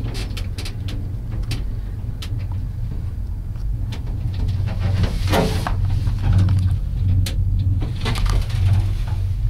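Gondola cabin riding its cable: a steady low rumble inside the cabin, with frequent light clicks and rattles and a louder clatter about five seconds in.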